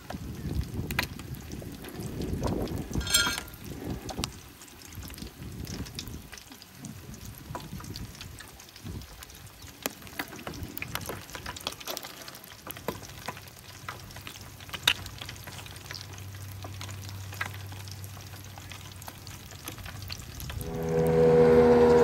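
A motorboat's engine approaching at speed: a low drone builds through the second half and becomes loud, with a clear engine pitch, near the end as the boat passes close. Before that, a crackling hiss with scattered clicks.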